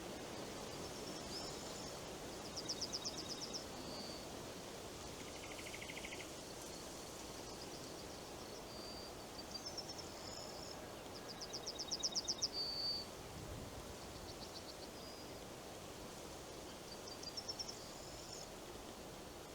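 A songbird sings several short, rapid trilled phrases, high-pitched and coming every few seconds, over a steady hiss of wind moving through forest leaves.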